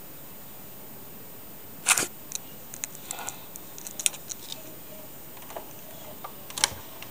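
Handling noise on a handheld camera: a sharp knock about two seconds in, a scatter of small clicks and taps over the next couple of seconds, and another sharp click near the end, over a steady faint hiss.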